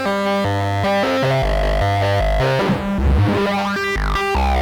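A sequenced analogue VCO plays through the distortion outputs of a Djupviks Mörser WASP-style filter, with the resonance being brought in. The result is a gritty, distorted synth line whose notes step about twice a second. A resonant peak sweeps down and back up a little past the middle.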